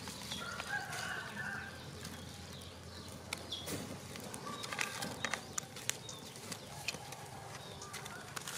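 Wood fire crackling and popping with many sharp clicks as raw cashew nuts roast in their shells among the embers. A few short bird-like calls sound in the background, about a second in and again around four to five seconds in.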